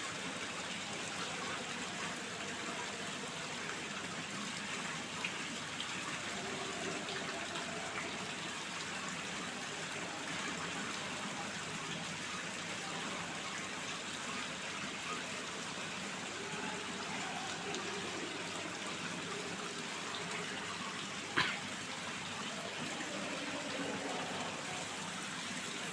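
Steady rushing noise of running water, with a sharp click about five seconds in and a louder one about twenty-one seconds in.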